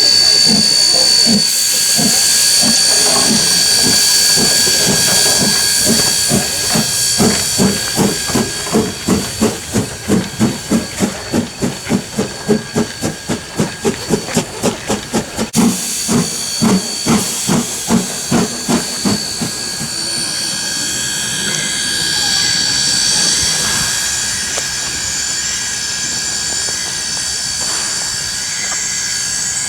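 Steam locomotive A428 working, its exhaust beats quickening to about two a second over a continuous hiss of steam. The beats stop about two-thirds of the way through, and the steam hiss carries on.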